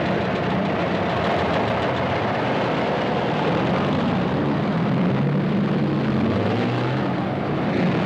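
Steady, dense roar of car engines and traffic, with low engine hums that shift in pitch about two-thirds of the way through.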